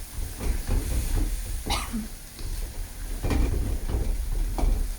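Spice paste and aromatic leaves sizzling in hot oil in a pan, with irregular knocks and scrapes of the spatula as it is stirred; one longer scrape comes about two seconds in.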